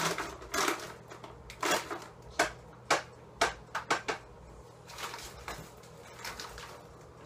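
Rummaging through a refrigerator and freezer: a string of sharp knocks, taps and rustles as packages and containers are moved about and the doors are handled, fading to faint sounds in the last couple of seconds.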